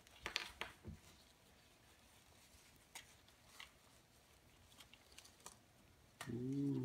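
Clear plastic bag and soft foam sleeve rustling and crinkling as a camcorder is slid out by hand, with a few sharper crinkles in the first second and faint scattered rustles after.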